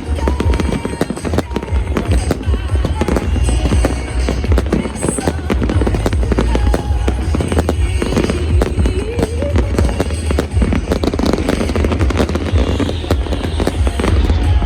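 Fireworks display going off in a dense, continuous barrage of bangs and crackles over a deep rumble, with music playing along.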